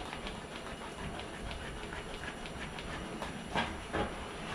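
Hand-scraping sludge out of a flooded manure pit beneath a pig farrowing crate: a quick, even clicking, about five a second, then a few louder knocks about three and a half seconds in.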